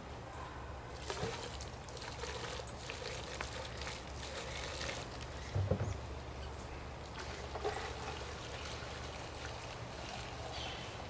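Gasoline trickling from a can into a generator's fuel tank as it is refilled with fresh fuel.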